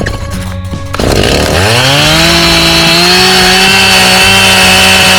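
Chainsaw revving up about a second in, its pitch climbing quickly, then held steady at full throttle.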